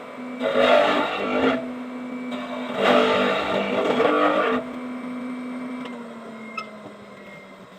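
Electric power tool running with a steady hum and cutting into wood in two loud bursts while a lock recess is mortised. It is then switched off, and its pitch sinks as the motor winds down.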